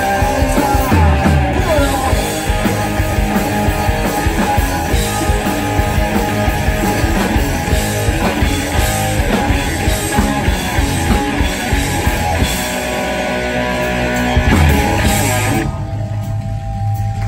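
Live rock band playing at full volume: electric guitar, bass guitar and drum kit. About a second and a half before the end the drums and cymbals drop out, leaving low held notes ringing.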